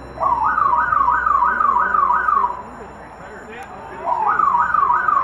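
School fire alarm sounding after being pulled: a loud electronic tone sweeping upward over and over, about three sweeps a second. It comes in a burst of a couple of seconds, pauses briefly, and starts again about four seconds in.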